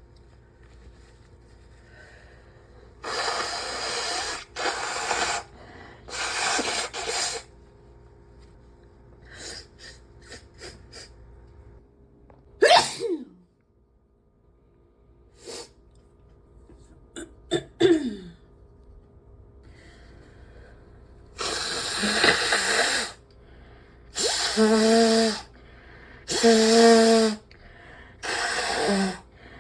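A person blowing a congested, mucus-filled nose in long wet blasts, and sneezing twice in sharp bursts with a falling voiced cry. Two of the later nose blows carry a honking tone.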